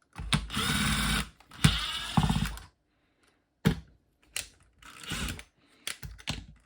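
A power driver with a Phillips PH2 bit runs in two bursts of about a second each, backing out the clamshell screws of a Makita DTD152 impact driver. A few light clicks and knocks follow.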